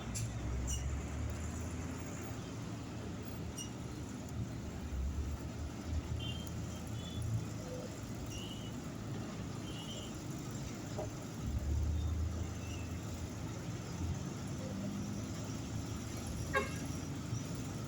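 Low engine rumble of passing heavy road traffic, swelling and fading several times, with a few faint short high chirps in the middle and one sharp click near the end.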